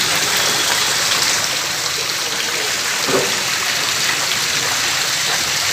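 Steady rush of water in a covered drain channel, a continuous even hiss.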